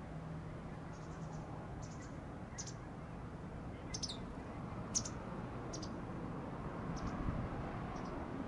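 A small bird chirping: short, high chirps about once a second, over a low rumble of outdoor background noise.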